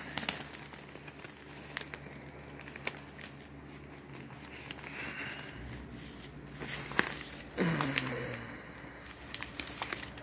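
Newspaper pages rustling and crinkling as they are handled and turned, with scattered small clicks and crackles. A faint steady low hum runs underneath, and there is a short low vocal sound about three-quarters of the way through.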